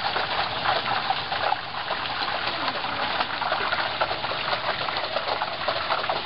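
Whole turkey in a propane turkey fryer pot of hot oil, the oil bubbling and crackling steadily around the bird held on its hook.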